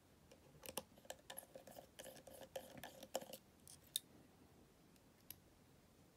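Faint small metallic clicks and scrapes of a precision Phillips screwdriver backing out the tiny screws of the metal connector-cover plate inside an iPhone 8 Plus, most of them in the first four seconds, with a thin faint squeak under them for about two seconds. One more click a little after five seconds.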